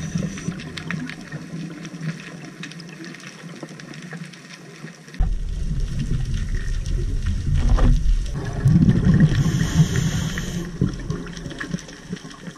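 Muffled underwater noise heard through a GoPro's dive housing, getting suddenly louder about five seconds in. Around the middle comes a loud bubbling burst with a hiss over it, typical of a scuba diver's regulator breath and exhaust bubbles.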